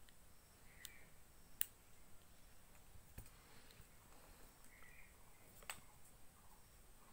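Near silence broken by a few sharp, faint plastic clicks from handling a Bluetooth selfie-stick remote and the selfie stick; the loudest comes about one and a half seconds in.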